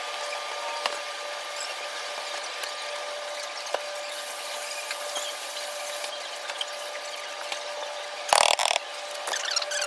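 Stacked commercial laundromat dryers running: a steady whirring hum with a constant tone through it. About eight seconds in, a brief loud rustle of fabric brushing the microphone.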